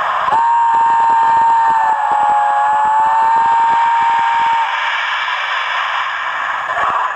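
A model steam locomotive's sound decoder sounding a chime whistle through its small loudspeaker: one long blast of several tones together, dipping slightly in pitch in the middle and stopping after about four seconds, then a steady hiss of steam before the loco moves off.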